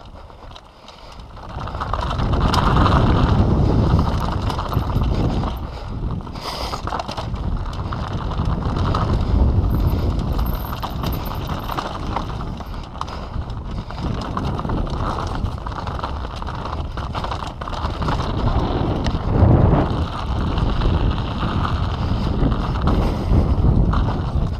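Downhill mountain bike riding fast over a dirt trail: wind rushing on the microphone over the tyres rolling on dirt, with many short rattles and knocks from the bike over bumps. It starts quiet and gets loud about two seconds in.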